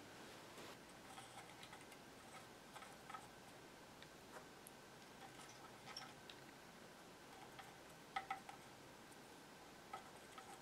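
Near silence with scattered faint clicks and taps from handling a soldering gun, solder spool and wires at a workbench, the sharpest pair about eight seconds in.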